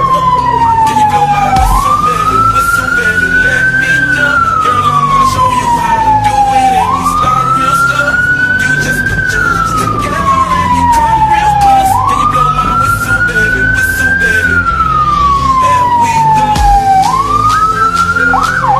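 Emergency vehicle's electronic siren wailing: one loud tone climbing and then sliding down slowly, about four full cycles of roughly five seconds each. Just at the end it switches to a rapid yelp.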